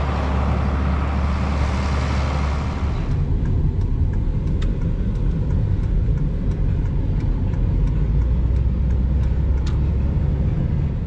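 Steady engine and road noise inside the cab of a diesel pickup truck driving along, with a few scattered light ticks. In the first few seconds, before a cut, a steady low engine hum is heard outdoors.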